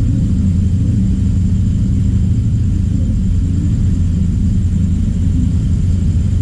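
Steady low rumble with a faint, constant high-pitched whine above it, unchanging throughout.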